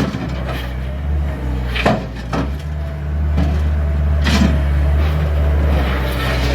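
Skid steer engine running steadily, its level dipping briefly around two seconds in and coming back up after three. Short clunks or scrapes break in about two seconds in and again a little after four.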